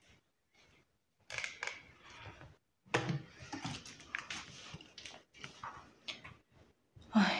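Irregular rustling and soft knocks of bed linen being handled as a bed is made.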